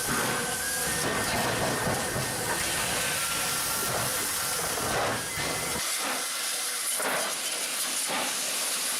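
Steam locomotive hissing steam, with soft chuffs about once a second. The low rumble beneath drops away suddenly about six seconds in.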